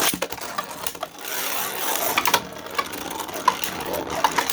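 Two 3D-printed Beyblade spinning tops whirring around a stadium, with repeated sharp clicks and clacks as they hit each other.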